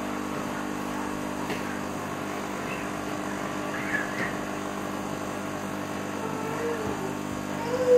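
Carpet and upholstery cleaning machine's motor running with a steady hum, with a few light knocks as it works.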